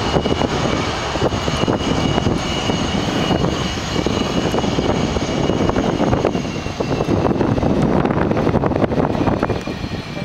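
Jet aircraft engines running loud on the runway: a heavy rush with a thin high whine that sinks slightly in pitch as the jet moves away.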